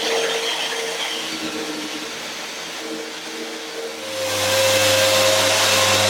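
Electric power tool motor running steadily. It drops lower and quieter, then comes back up to full speed about four seconds in.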